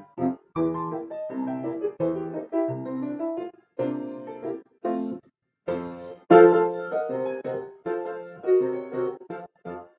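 Grand piano playing a ragtime piece: chords and melody in short phrases, broken by brief moments of silence.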